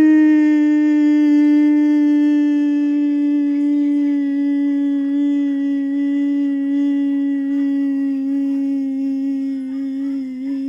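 A person's voice holding one long, unbroken note, its pitch sinking slowly and slightly, with a small waver near the end.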